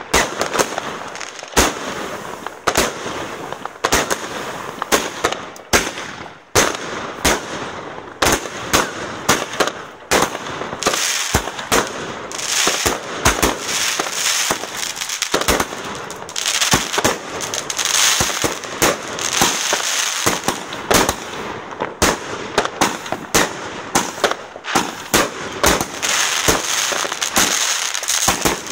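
Aerial fireworks going off: a close, continuous run of sharp bangs, several a second at times, with a hissing crackle from about eleven seconds in.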